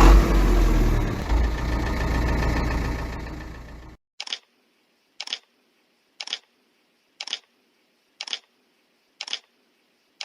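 An engine running with a heavy low rumble, cut off suddenly about four seconds in. Then come short, sharp ticks about once a second, seven in all.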